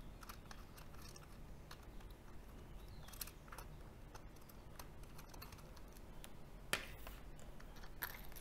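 Faint, scattered clicks and light metal scraping of a screwdriver turning the small machine screws that hold the aluminium end cap of a stepper motor, with a few sharper clicks about three seconds in and near the end.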